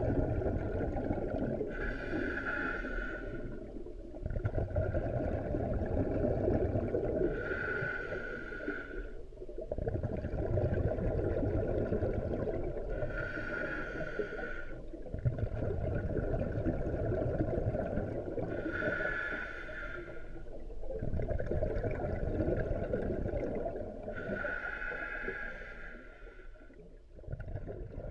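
Scuba diver breathing underwater through a full-face mask's regulator, heard through an underwater camera: five slow breaths, each a short hiss of drawn air followed by a longer rumble of exhaled bubbles.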